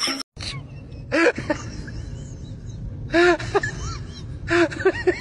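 A Rottweiler whining in short rising-and-falling calls, in three bursts of a few calls each, over a low rumble of handling noise.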